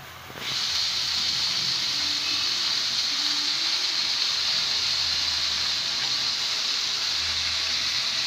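Freshly washed mustard greens sizzling in hot oil in a karahi: a steady hiss that comes in about half a second in and holds.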